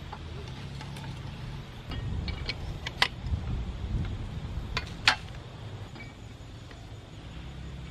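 Steel spade digging into hard, dry soil, with dull scraping and a few small clicks, and two sharp metallic clinks, about three and five seconds in, as the blade strikes stone or brick.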